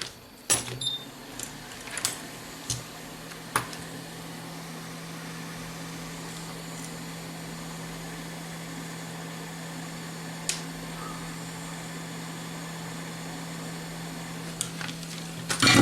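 Hot-air rework station blowing steadily with a constant low hum, heating flux over the solder balls of an eMMC memory chip so the oxide film melts off. A few light clicks sound in the first few seconds and once more near the middle.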